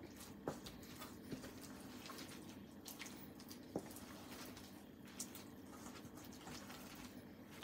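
Faint wet squelching of thick flour batter with shrimp being mixed in a bowl, with a few small clicks.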